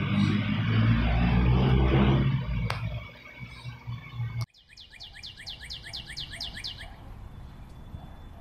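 A loud low rumble for about the first three seconds. Then, after a sudden cut, a quick run of about a dozen high, falling bird-like chirps lasting about two seconds.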